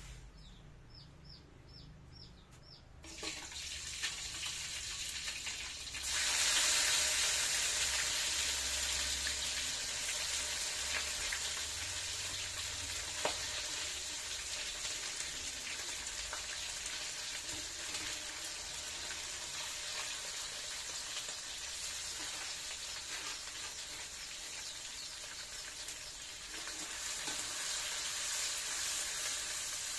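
Meat frying in hot oil: a steady sizzle that starts about three seconds in and gets louder about six seconds in. Before it, a bird gives a few short chirps.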